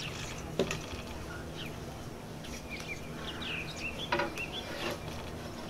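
Small birds chirping in short, quick calls, most of them in the second half, over a steady background hum. Two soft knocks come through, one shortly after the start and one about four seconds in.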